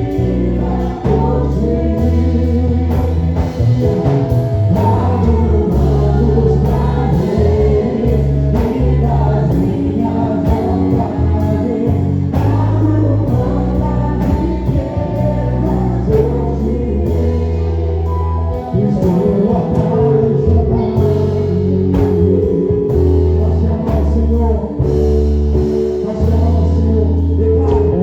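Gospel worship song played by a band with singing, over held bass notes that change every second or two.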